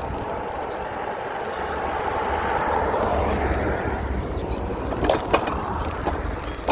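Riding noise picked up by a camera mounted on an e-bike: steady wind rumble and road noise, swelling for a couple of seconds in the middle, with a few sharp clicks or rattles about five seconds in.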